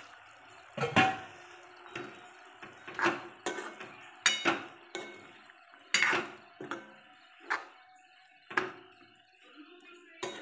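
A spatula stirring vegetables in a metal kadhai, knocking and scraping against the pan a dozen or so times at an irregular pace of about one a second.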